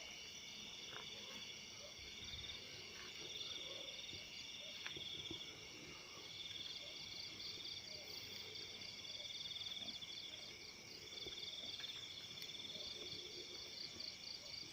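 A night chorus of crickets and other insects: several steady high trills overlapping, one of them a rapid regular pulsing that grows plainer in the second half.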